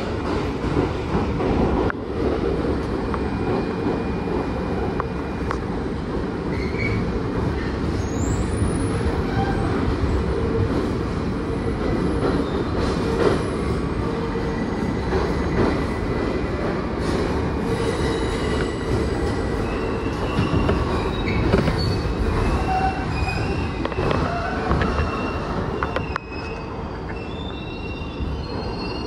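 New York City subway train running, with a steady rumble of steel wheels on rail. A high-pitched squeal of wheels against the rails comes in about halfway through and grows toward the end.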